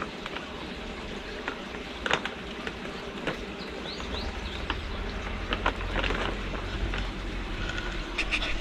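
Kittens scuffling on a wooden bench, with scattered light taps and rustles from their paws on a plastic basket and a paper packet, over a steady outdoor hiss. A low rumble comes in about halfway and runs until shortly before the end.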